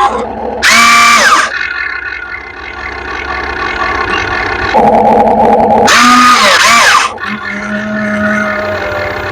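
RC excavator's electric motors and hydraulics whining in loud bursts of about a second, the pitch rising and falling as each motion starts and stops, with a steadier hum between.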